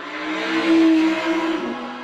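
Background music with a whooshing, noisy swell that builds to its loudest about a second in, over held tones, one of which drops in pitch near the end.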